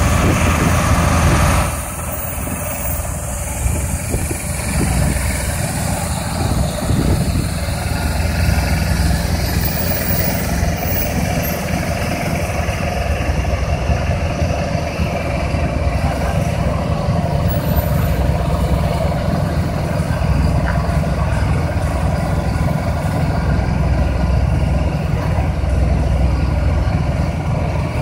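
Heavy diesel truck engines running steadily as a slow convoy of tractor units hauling oversize loads on multi-axle trailers passes by, with a continuous low rumble.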